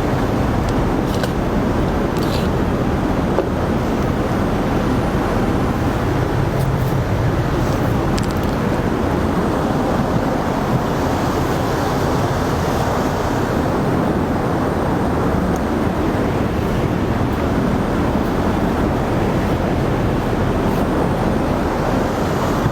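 Steady airflow and engine noise inside an Airbus A380 cabin in flight: an even, unchanging rush, strongest in the low and middle range, with a few faint clicks on top.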